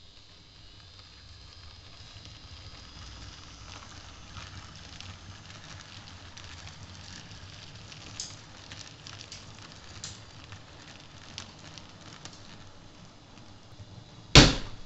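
Model trains running over the layout's track, their small wheels clicking and rattling over rail joints and points, the clicks busiest midway. One sudden loud knock near the end.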